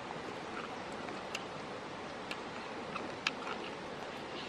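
Wood cooking fire crackling: a steady hiss with a few sharp, irregular pops, the loudest a little over three seconds in.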